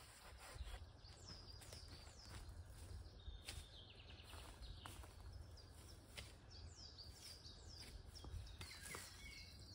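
Faint birdsong: many short, downward-sliding chirps and a quick trill about three and a half seconds in, over a steady low rumble, with a few soft knocks.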